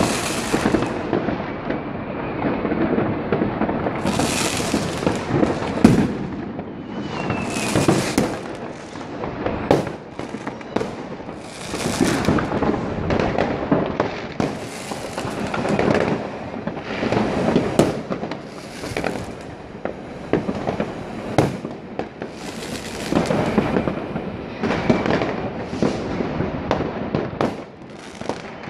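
Massed fireworks and firecrackers going off all over a city at once: an unbroken din of crackling and popping, pierced by sharp loud bangs every second or so. A short falling whistle comes about seven seconds in.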